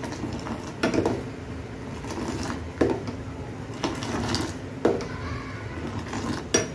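Hot milk tea poured in a stream back into a pan of boiling chai, splashing every second or two over a steady low bubbling.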